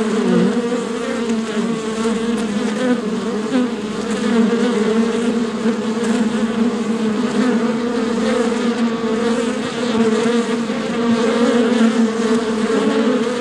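A swarm of honeybees buzzing: a dense, steady hum of many wingbeats, wavering slightly in pitch as individual bees pass.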